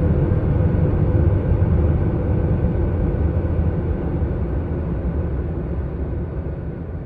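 A dense, low rumbling drone with a few faint steady tones above it, one of the space sounds (sonified spacecraft or radio data) in a compilation. It slowly fades over the last few seconds.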